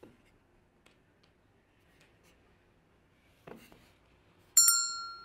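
Light knocks of a wooden joint being handled, then set down on a wooden workbench with a soft knock about three and a half seconds in. Near the end a loud, bright bell-like ding sound effect rings out suddenly and fades.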